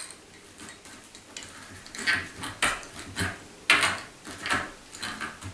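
Door handle hardware being fitted to a door: small metal parts clicking and scraping as the male and female fixing sleeves are pushed through to join. Several short clicks and scrapes, the loudest about two seconds and nearly four seconds in.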